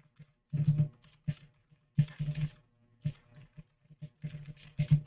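Typing on a 60% computer keyboard: irregular runs of keystrokes in short bursts with brief pauses between them.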